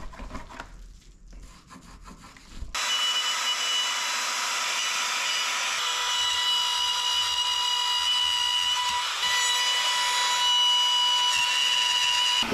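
Compact trim router with a 1/4-inch straight bit, set to high speed, cutting a pocket into the boat's solid wooden cabin side. It starts suddenly about three seconds in, a steady high whine that holds through the cut.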